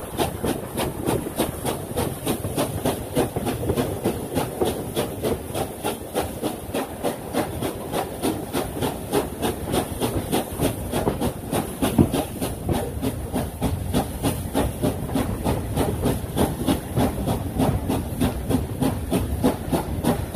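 USATC S160 2-8-0 steam locomotive working a train, its exhaust beating in a quick, even rhythm over steady hiss and running noise, heard from an open carriage window behind it. One louder knock comes about twelve seconds in.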